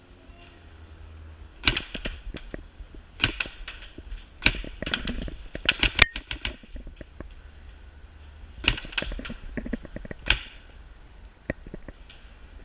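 Airsoft guns firing in short rapid bursts of sharp clacks, in two main spells of shooting separated by a lull of about two seconds.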